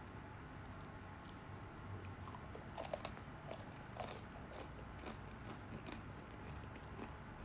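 A freshly baked walnut bread roll being pulled apart by hand: faint crackles and crisp tearing of the crust and soft crumb, loudest about three and four seconds in, over a low steady hum.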